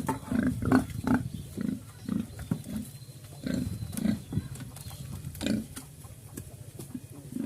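Pigs grunting: a string of short, low grunts, about two a second, bunched in the first couple of seconds and again in the middle.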